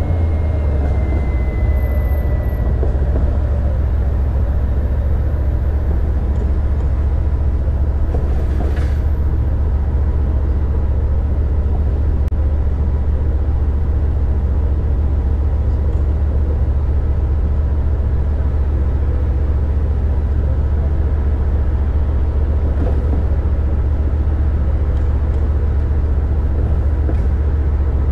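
A car driving on city streets: a steady, heavy low rumble of road and engine noise. A faint falling whine fades out in the first few seconds, and there is one short sharp click about nine seconds in.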